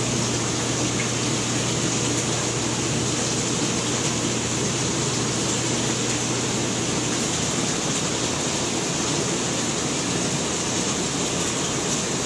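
Steady rush of circulating water with a constant low hum from the pumps of a multi-tank saltwater aquarium system.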